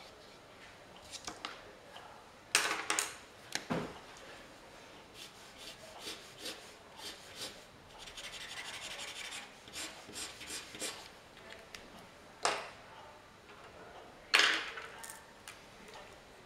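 Art tools (brush, marker, pencil) rubbing and scratching on paper in short strokes, with a steadier stretch of scratching about halfway through. Four sharp knocks stand out, the loudest near the end.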